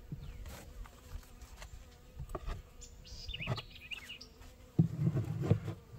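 Honeybees buzzing around an open Layens hive in a steady hum, with a few light clicks from handling the wooden top bars. A bee buzzes louder close by near the end.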